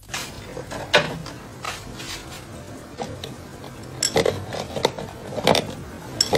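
A steel adjustable wrench clinking and knocking against a cabinet as a cat inside tussles with it: a series of irregular sharp metallic taps.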